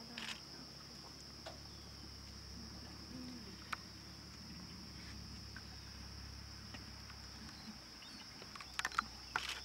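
Insect chorus shrilling steadily on one high pitch over a faint low hum, with a few sharp clicks, most of them near the end.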